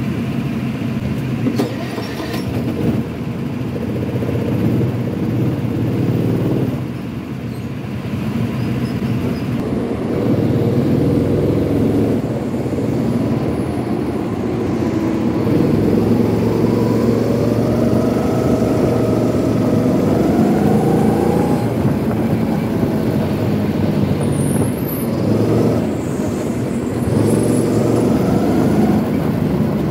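Go-kart running as it pulls out of the pits and speeds up onto the track, with a motor whine rising and falling in pitch in the second half.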